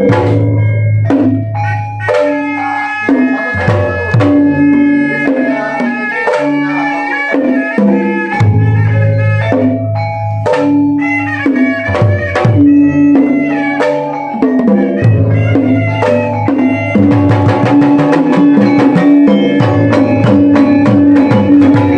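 Sundanese gamelan ensemble playing: a dense run of struck metallophone notes over hand-drum strokes, with a steady repeated mid-pitched note and a low ringing tone underneath. The playing grows fuller and busier about three quarters of the way in.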